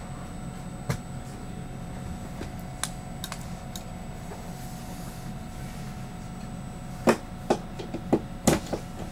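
Interior of a commuter train easing along a station platform: a steady low running hum with a few faint tones. A few isolated clicks come early, and a run of sharp knocks or clacks falls in the last two seconds.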